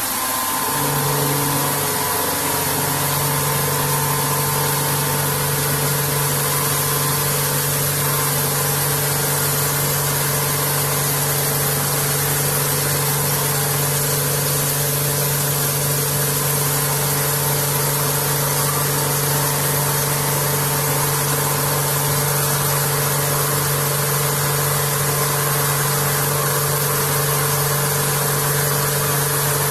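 Vertical machining centre face milling an aluminium part: a steady cutting drone with a constant hum under it and an even hiss over it. The pitched tone settles in about a second in and then holds unchanged.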